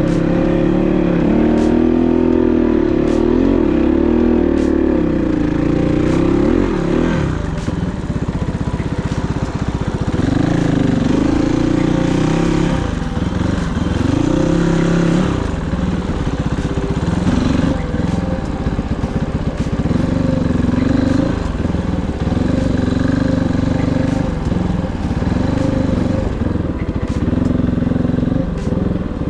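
Kovi 450i Pro enduro motorcycle engine under way, its pitch rising and falling again and again as the throttle is opened and closed, often every second or two.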